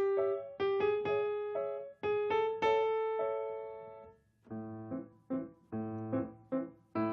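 Solo acoustic piano playing. A melodic phrase rings and dies away about four seconds in, then quieter, lower chords are struck one after another.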